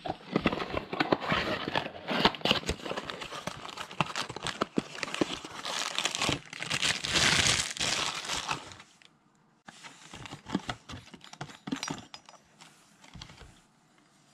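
Packaging crinkling and tearing as bathtub drain parts are unwrapped from a small cardboard box. About nine seconds in the crinkling stops, leaving a few light clicks and taps of the parts being handled.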